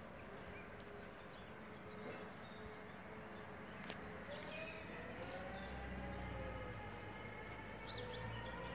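A small songbird singing short, very high phrases of a few quick falling notes, repeated about every three seconds. A low drone with faint rising tones builds in the background from about halfway.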